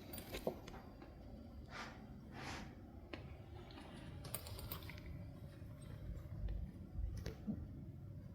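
Cats shifting about in a basket: scattered soft clicks and ticks, with two short rustles about two seconds in.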